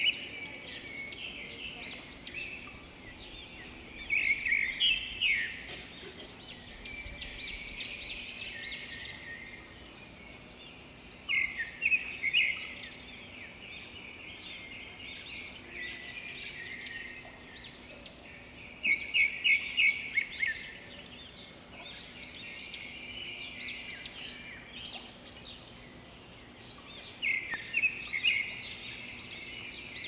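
A flock of small birds perched on power lines, twittering and chirping without a break, with louder bursts of chirping about every seven or eight seconds.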